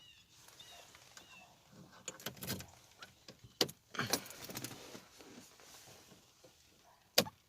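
Faint, scattered clicks and rustling, with one sharp click near the end.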